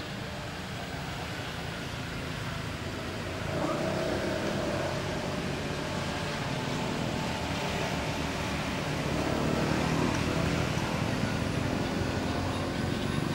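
Outdoor background noise: a steady low rumble like distant traffic or an engine, growing louder about a third of the way in and again later.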